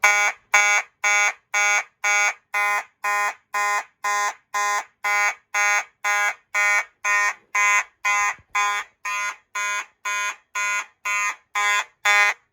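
Simplex 2901-9833 fire alarm horn sounding a loud buzzy tone, pulsed on and off about twice a second in march-time code by a relay that an Arduino coder module switches.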